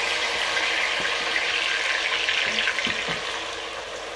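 Diced tomatoes sizzling in hot palm oil with onions in a steel pot: a steady frying hiss that eases slightly near the end. A wooden spoon knocks lightly against the pot a few times.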